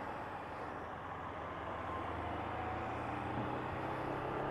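Steady engine hum and road noise of a vehicle being driven along a road.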